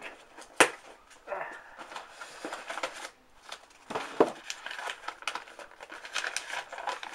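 A postal package being cut open with a knife: the packaging crinkles and tears, with a few sharp clicks and bursts of rustling.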